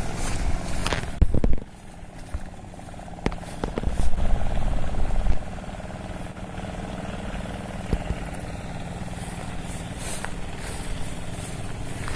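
A vehicle engine running steadily, with two louder low rumbles in the first half.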